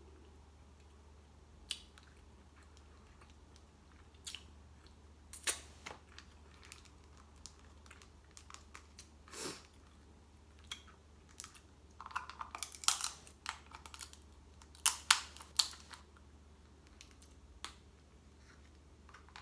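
Snow crab leg shells cracking and snapping between the fingers in scattered sharp clicks, with a dense flurry of cracks about twelve seconds in and another about fifteen seconds in. Chewing and sucking of the crab meat come in between.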